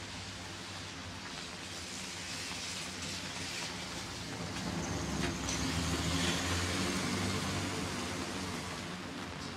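A car driving past on a wet street, swelling to its loudest a little past the middle and then fading, over a steady hiss of rain.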